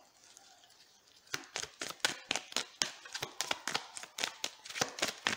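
A small deck of cards shuffled by hand, a quick uneven run of card clicks, about six a second, starting about a second in.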